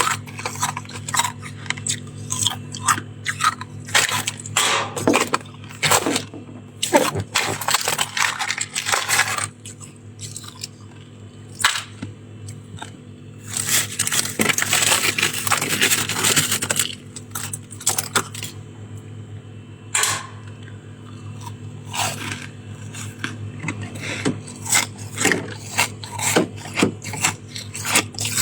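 Soft, crispy shaved ice being bitten and chewed close to the microphone: irregular sharp crunches, with a denser run of continuous crunching about halfway through. A steady low hum sits underneath.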